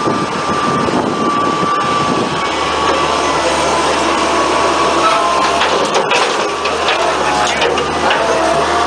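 Bobcat skid-steer loader's engine running steadily as the machine drives down steel loading ramps off a truck bed.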